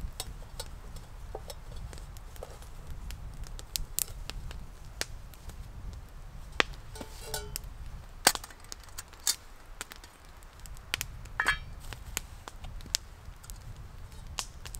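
Stainless-steel camp cookware (an MSR Alpine Stowaway pot and a Tatonka kettle) being handled: irregular metallic clicks and clinks of lids, bail handles and nested pots, a few sharper knocks among them, over a steady low rumble.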